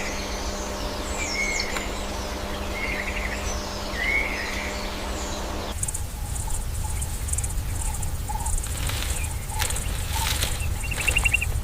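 Forest ambience of short chirping bird calls, repeating about once a second over a steady hum. About six seconds in, it switches abruptly to a different ambience with a pulsing high insect buzz, a low rumble and a brief trill near the end.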